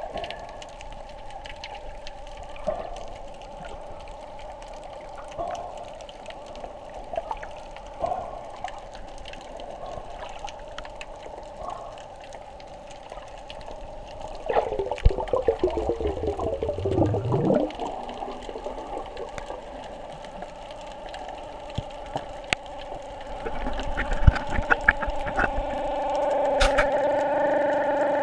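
Muffled underwater sound with a steady hum of the water and scattered small knocks. About halfway through comes a burst of bubbling gurgle that slides down in pitch, and near the end a run of crackling clicks as the sound grows fuller.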